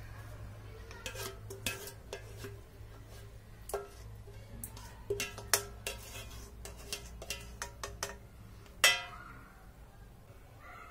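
A spoon scraping and knocking against a ceramic bowl as meat sauce is spooned out onto lasagna sheets: a string of irregular clinks and taps, some ringing briefly, the loudest one near the end.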